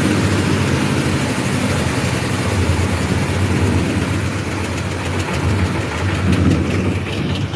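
Waste-sorting and shredding machine running: a steady low hum under a broad rushing noise, with light rapid ticks near the end.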